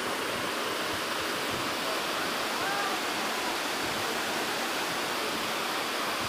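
A wide waterfall pouring down a stepped wall, a steady, dense rush of falling water.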